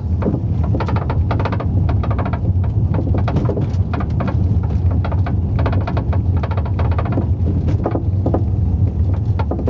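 Road rumble inside the cabin of a moving 2001 Volkswagen Jetta GLX, with irregular rattling and knocking from the rear door panels. The owner suspects a loose rod inside the rear door panel rattling against the window glass.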